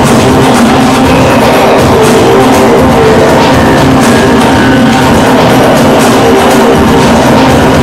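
Loud, dense experimental noise music over sustained droning tones, performed live.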